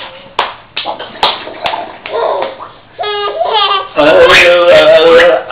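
A baby laughing hard, in short pulsing bursts from about three seconds in that turn loud and continuous about a second later.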